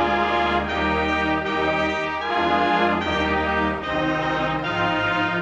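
Slow orchestral background music led by brass, holding sustained chords that change about once a second.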